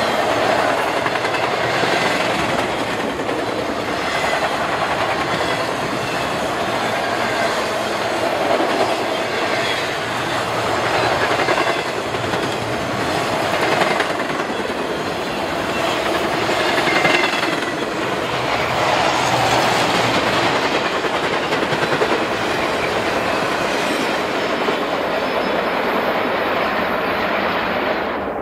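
BNSF intermodal freight train of trailers on flatcars rolling past close by at speed: a steady rumble and clatter of steel wheels on the rails, swelling and easing slightly as the cars go by.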